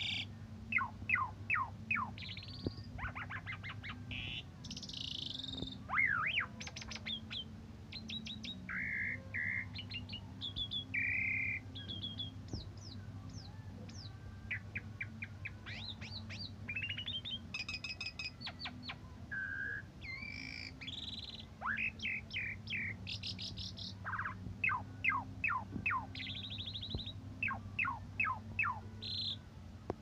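Javan pied starling (jalak suren) singing a long, varied song. It mixes quick runs of sharp downward-sweeping chips, short clear whistles and rasping notes, with brief pauses between phrases, over a steady low hum.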